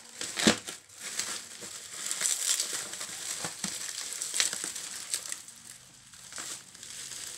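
Bubble wrap and plastic packaging crinkling and crackling as it is handled and pulled off a folding table, with a sharp knock about half a second in.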